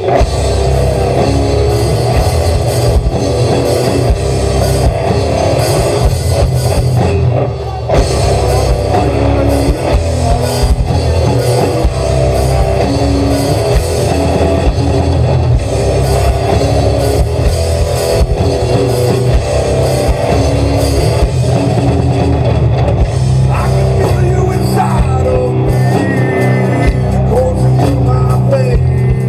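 Live rock band playing loud: electric guitar, bass guitar and a drum kit.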